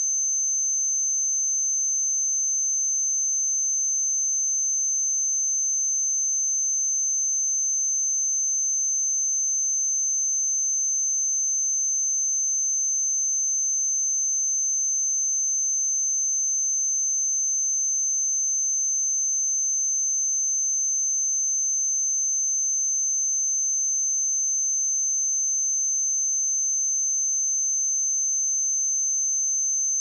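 A pure 6227 Hz sine-wave test tone, a single steady high-pitched whistle held at constant level.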